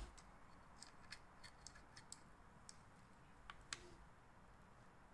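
Near silence with faint, scattered clicks and taps: multimeter test probes knocking against the metal prongs and wire ends of a 30-amp shore power inlet during a continuity check. The meter's continuity tone does not sound.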